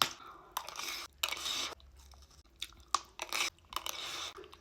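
Close-miked crunchy chewing of chatpate, a spicy puffed-rice snack mixed with chowchow noodles, in irregular crackly bites and crunches.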